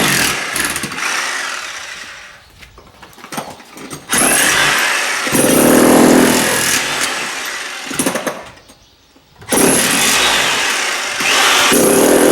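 Electric demolition hammer breaking up a concrete slab, running in three long bursts with short pauses between them.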